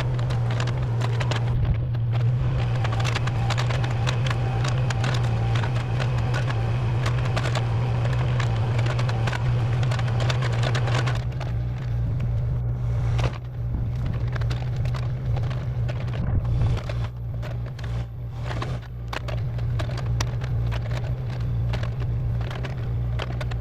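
A machine's engine running steadily, with dense crackling and splintering of wood over it. About halfway through, the crackling thins to scattered sharp cracks while the engine keeps running.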